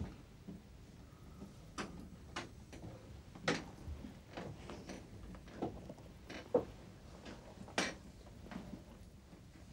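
Irregular sharp clicks and knocks, roughly one a second, a few of them louder than the rest.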